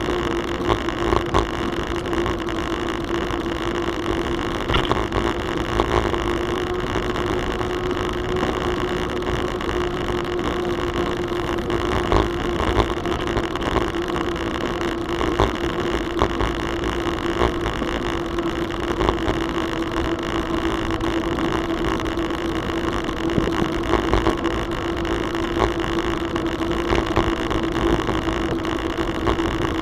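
Bicycle rolling along a paved trail, with steady tyre and wind noise, a constant hum and scattered light clicks and rattles from bumps in the surface.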